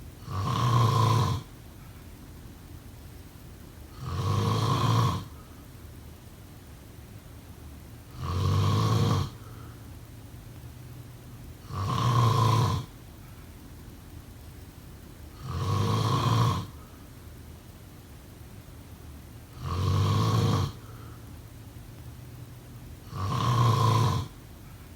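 A person snoring: seven evenly spaced snores, one about every four seconds, each lasting about a second.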